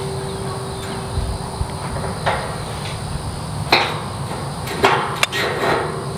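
Metal-on-metal clanks as a wrench works a gate hinge's carriage bolt on a steel pipe post: a few sharp knocks, about two, four and five seconds in. The struck steel pipe rings with a steady tone that dies away about two seconds in.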